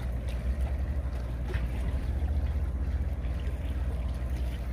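Steady low rumble, with a few faint clicks and ticks over it.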